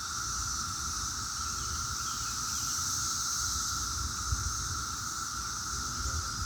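Chorus of 17-year periodical cicadas (Brood X), a continuous steady drone with no breaks, over a low rumble on the microphone.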